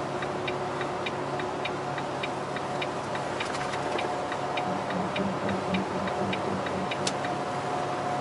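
A truck's turn-signal indicator ticking steadily, about two clicks a second, and stopping about six and a half seconds in, over the steady drone of the cab at highway speed. A single sharper click comes about seven seconds in.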